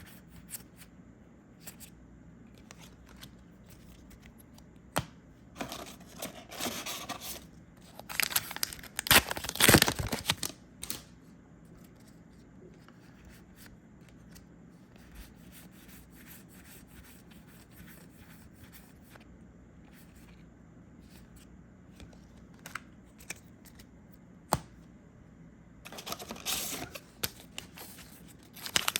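Booster pack wrappers being torn open and crinkled, in three bursts: around six seconds in, again from about eight to ten seconds, and near the end. Quieter stretches with an odd sharp click lie in between.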